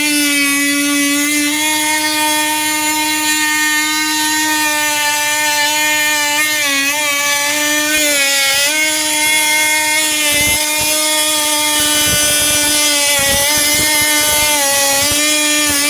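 Oscillating multi-tool with a half-round segment blade running at a steady high-pitched buzz as its blade is worked along the seams between wooden hull planks, scraping out the gaps. Its pitch dips and wavers briefly twice, around the middle, as the blade is pressed into the seam.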